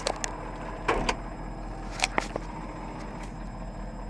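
Ford tow truck's diesel engine idling steadily, heard through the open driver's door. Sharp clicks and knocks from the door and cab interior come near the start, about a second in and about two seconds in.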